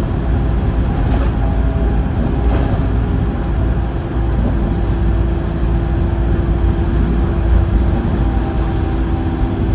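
Wright StreetLite single-deck bus heard from inside the cabin while under way: a steady engine drone and road rumble with a held whining tone over it.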